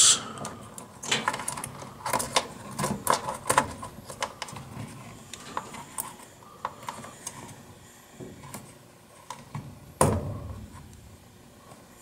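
Irregular small clicks, taps and scrapes of a hand working a replacement furnace limit switch into place against the sheet-metal cabinet, with one louder knock about ten seconds in.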